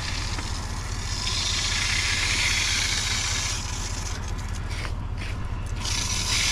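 Irrigation well pumping, water rushing through the steel discharge pipe over a steady low hum. The gate valve's handwheel is turned by hand, with scraping, ratcheting clicks from about three and a half seconds in to nearly six, closing the valve down to raise the line pressure.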